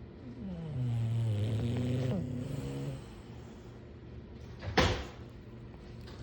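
English bulldog snoring: one long snore of about two and a half seconds that slides down in pitch at its start and then holds steady. Near the end comes a single short, sharp noise, the loudest sound here.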